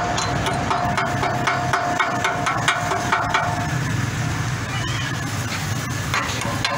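An engine idling steadily, with repeated metal taps and clinks from a hand tool worked against the concrete mixer's steel frame and wheel. A steady high whine stops a little past halfway.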